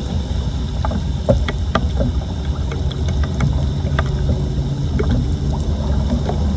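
Floodwater on a street sloshing and draining, a steady low rumble with scattered small clicks and splashes.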